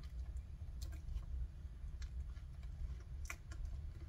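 Silicone mold being flexed and peeled off a freshly cured resin casting: scattered small clicks and crackles, with one sharper click about three seconds in, over a low steady hum.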